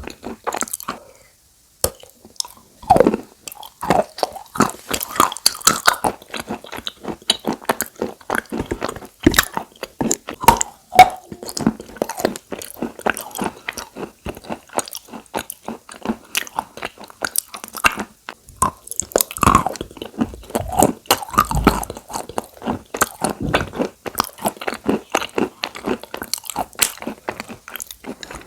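Close-miked crunching and chewing of chalk coated with clay paste: dense, irregular crackly crunches that go on almost without a break, with one short pause about a second in.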